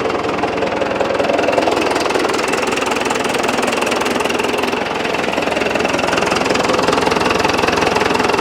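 1961 Case 831C tractor's diesel engine running steadily with a rapid, even diesel clatter and its oil pressure up.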